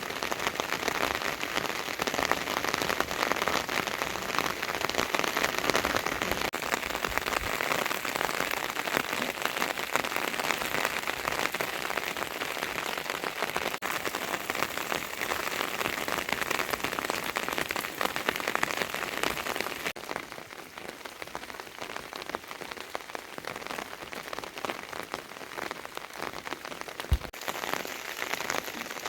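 Steady rain falling and pattering on surfaces, a dense hiss of many small drops. About twenty seconds in it turns duller and a little quieter, brightening again near the end, with one short knock just before it does.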